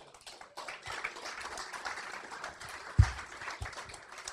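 Audience applauding, many hands clapping, thinning near the end. A low thump about three seconds in is the loudest moment, with a smaller one just after.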